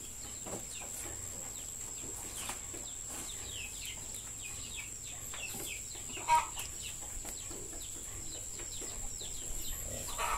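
Chickens clucking, with many short high chirps and one louder call about six seconds in, over a constant high whine.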